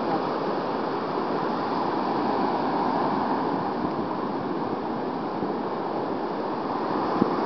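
Ocean surf breaking and washing up the beach, with wind on the microphone. There is one short knock near the end.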